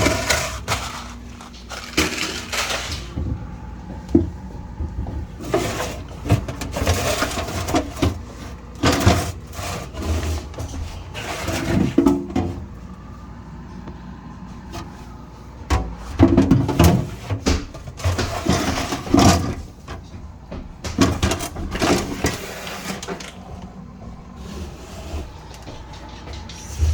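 Irregular rubbing and scraping with knocks and clatters: a refrigerator being scrubbed and cleaned out by hand, in uneven bouts with short pauses.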